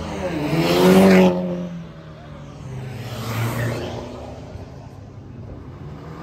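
A car engine revving hard as the car accelerates past, its pitch climbing to a loud peak and dropping off sharply a little over a second in. A second, weaker rev rises and falls about three seconds in, then the engine settles to a lower, steady sound.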